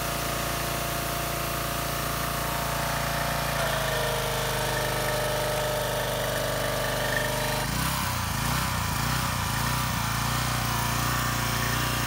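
Single-cylinder 7.75 hp Briggs & Stratton engine of a Craftsman 2700 PSI pressure washer running steadily under load while the pump drives a high-pressure spray, on a test run of its TIG-welded cast aluminium pump manifold. The tone shifts about four seconds in and again about eight seconds in.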